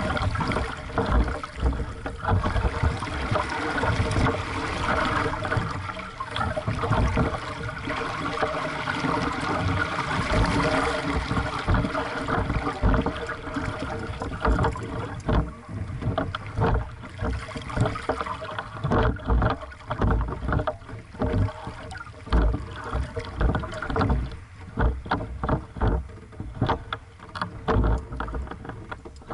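Water washing and slapping against the hull of a small aqu@muse sailing dinghy under way through light chop: a continuous rush with irregular splashes, which come as more separate slaps in the second half.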